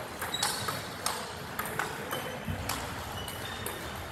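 Table tennis balls clicking off paddles and tables in quick, irregular succession, several clicks a second, some with a short high ping.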